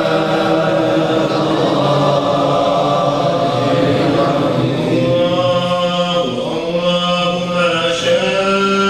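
Group of men singing a Sufi devotional chant in unison, unaccompanied. About halfway through, the voices settle into long held notes.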